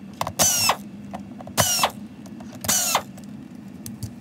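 T15 Torx driver backing out screws from a robot vacuum's plastic base: short whirring bursts about a second apart, each rising slightly in pitch.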